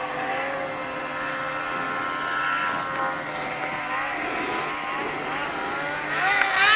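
Yamaha snowmobile engine running at speed, its pitch wavering up and down as the rider works the throttle across the snow. About six seconds in it rises in pitch and gets louder as the sled comes closer.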